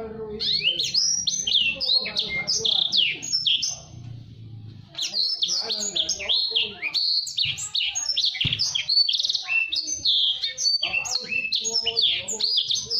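Blacksang, a blackthroat × sanger hybrid songbird, singing a fast, tightly packed song of rapid high chirps and trills in two long phrases, with a short pause about four seconds in.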